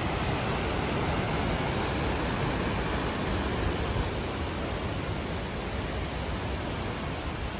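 Steady rush of a fast white-water river pouring over rapids, an even roar of water.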